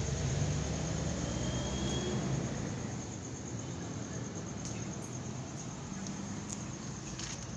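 Motor vehicle engine running close by, a low rumble that fades away about two and a half seconds in, leaving steady street hiss.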